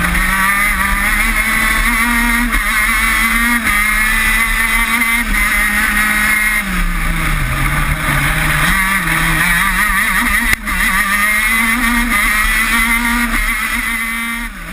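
Maxter 125 cc two-stroke gearbox engine of a KZ shifter kart running hard at racing speed, its pitch climbing and falling with the gear changes, dipping low about seven seconds in as it slows for a corner, then climbing again. A brief drop in sound comes at about ten and a half seconds, and the sound fades right at the end.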